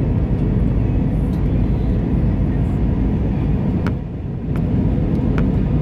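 Airbus A320 cabin noise on the landing approach: a steady low rumble of the engines and the airflow, dipping briefly about four seconds in.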